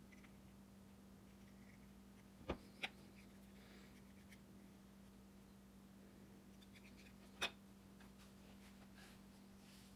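Near silence with a faint steady hum, broken by three light clicks of small hand tools being handled and set down on a wooden workbench: two close together about two and a half seconds in, and one more about seven and a half seconds in.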